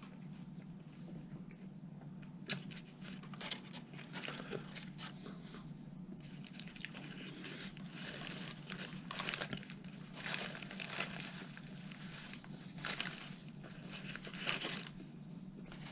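Paper burger wrapper crinkling and rustling in irregular bursts as it is handled around the sandwich, busiest in the second half, over a steady low hum.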